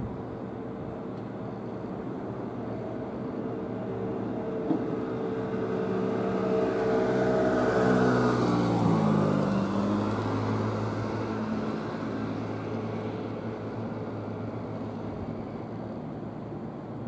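JR West commuter electric train moving slowly along the depot tracks, its traction motors and equipment whining in several steady tones. The sound grows louder as the lead car comes beneath, then the tones fall in pitch about halfway through as it passes.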